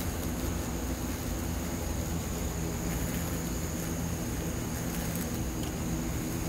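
Steady low buzzing of Asian giant hornets beating their wings while stuck on a sticky trap, over an even hiss, with a thin high whine held throughout.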